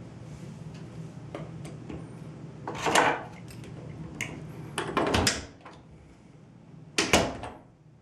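The bent steel dinner-fork door lock being taken apart at the door jamb: the cut-off fork handle scraping and clinking as it slides out of the slot in the fork prongs, and the fork rattling against the latch hole. Three short, loud metallic rasps come about two seconds apart.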